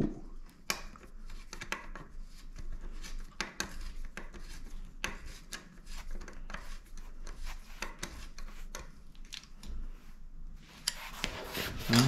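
Black Shimano Deore LX rear derailleur being bolted onto a bicycle frame's dropout with a hand tool: irregular small metal clicks, taps and scraping as the tool turns the mounting bolt and the derailleur is shifted into place.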